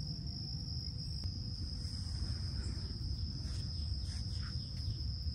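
Insects trilling in one steady, unbroken high-pitched tone, over a constant low rumble, with faint rustling near the middle.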